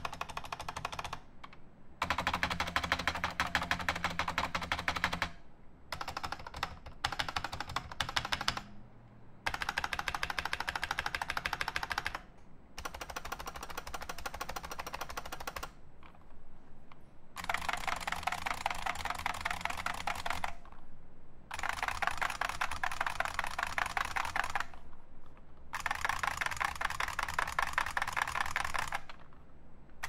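Typing on an IBM Model M64, a Model M terminal keyboard cut down to 60% with its original buckling-spring switches and keycaps: fast, clicky keystrokes in runs of a few seconds broken by short pauses.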